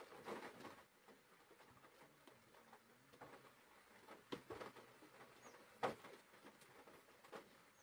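Rain pattering on a car's roof and windscreen, heard faintly from inside the cabin as scattered, irregular taps, with one sharper tap about six seconds in.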